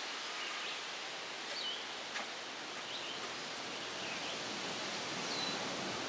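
Woodland ambience: a steady hiss of background noise with faint, scattered bird chirps and a couple of faint clicks about two seconds in.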